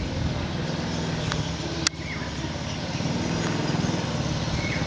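A motor vehicle's engine running steadily at idle, with a single sharp click a little under two seconds in.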